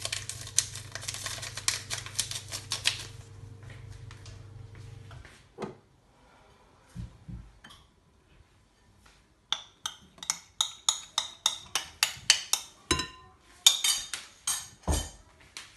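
A small motor hums with rapid clicking and stops suddenly about five seconds in. After a pause comes a quick run of sharp metal-on-bowl clicks, about three a second, as kitchen utensils strike a bowl.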